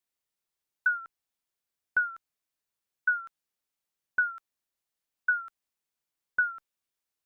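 Digital countdown timer beeping: short electronic beeps about once a second, each starting with a click and dipping slightly in pitch, six in all.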